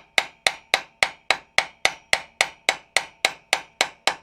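Hammer tapping a tight-fitting steel part of a motorcycle main stand into place, with a steady run of light, even blows at about four a second. Each blow has a short metallic ring.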